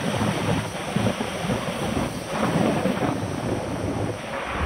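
Wind buffeting the microphone of a camera riding on a moving bicycle: a steady rushing noise with uneven low rumbling gusts.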